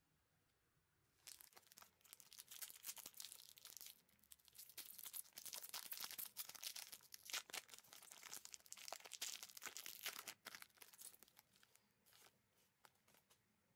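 Foil trading-card pack being torn open and crinkled by hand: a crackling rustle that starts about a second in, runs for about ten seconds, and dies away to a few light crinkles near the end.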